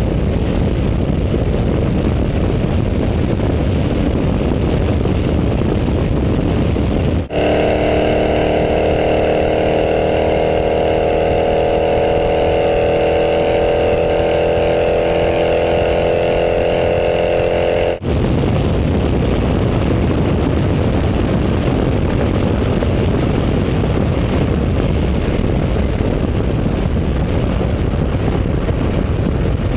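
Rushing wind and tyre roar from a car at high highway speed, buffeting the microphone. In a ten-second stretch in the middle, set off by abrupt cuts, the 2011 Dodge Charger R/T's 5.7-litre Hemi V8 is heard clearly, held at high revs and rising slowly in pitch as the car pulls toward top speed.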